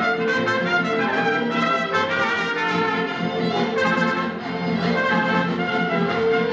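Mariachi band playing live: trumpets carry the melody over strummed acoustic guitars.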